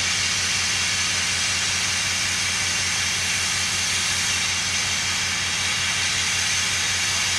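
Standing Garratt steam locomotive letting off a steady, loud hiss of steam, over a fast, even low pulsing.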